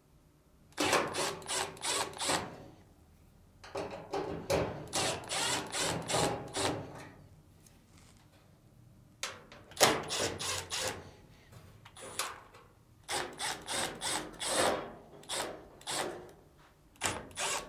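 Cordless impact driver backing screws out of the dryer's sheet-metal upper frame plate, in five separate runs of rapid rattling with short pauses between them, the last one starting near the end.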